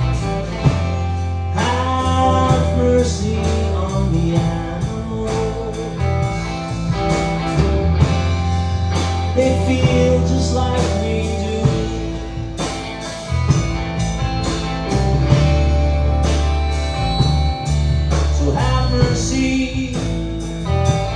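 Background music: a band song with guitar over a steady bass and beat.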